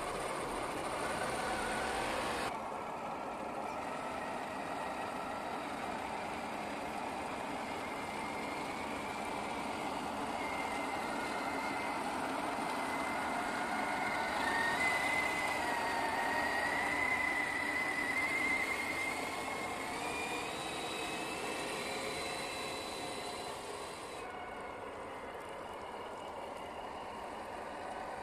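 Electric motor and gear drive of a 1/10-scale RC Bronco crawler whining as its tyres churn through thick sticky mud; the whine wavers and rises a little in pitch with the throttle and is loudest in the middle. The sound changes abruptly about two seconds in and again near the end.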